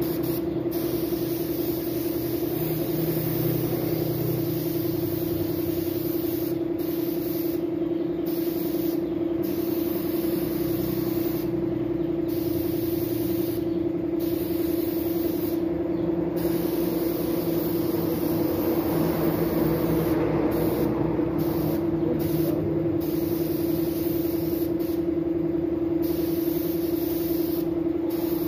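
Gravity-feed paint spray gun hissing as it sprays paint, over a steady motor hum; the spray hiss swells for a few seconds past the middle.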